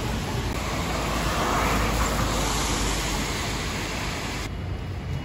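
Road traffic: a steady wash of passing cars and scooters, swelling about a second and a half in. The sound changes abruptly near the end, the hiss losing its top.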